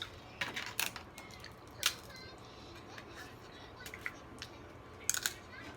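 Eating sounds of a seafood boil: sharp cracks and clicks of shells being broken and picked at, a few spread out and then a quick cluster about five seconds in.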